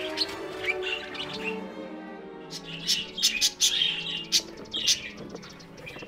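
Budgerigars chirping in short, scattered calls over background music of long, steady low notes.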